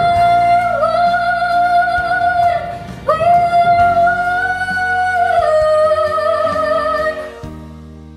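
A girl singing solo, holding two long notes in turn, the second ending about seven seconds in, after which the sound dies away.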